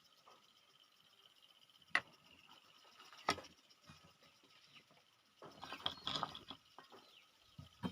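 Peanut shells being cracked and eaten: two sharp snaps about two and three seconds in, then a longer run of crackling and crunching around six seconds, and one more snap at the end.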